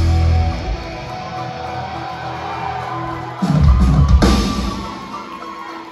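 Live rock band: electric guitar and band holding a sustained chord, then two heavy hits on the drum kit with the whole band about three and a half and four seconds in, left to ring out and fade.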